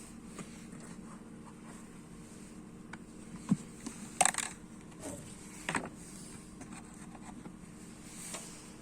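A few sharp clicks and knocks of plastic parts being handled as a car's cabin air filter and its housing are taken out, over a steady low hum.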